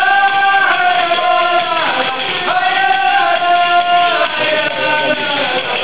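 A group of voices singing a song in long held notes to accompany a dance, breaking off briefly about two seconds in and again after about four seconds.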